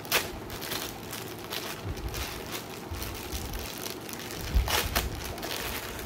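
A plastic packet being torn open and handled, crinkling throughout, with sharp rips just after the start and again, loudest, between four and a half and five seconds in.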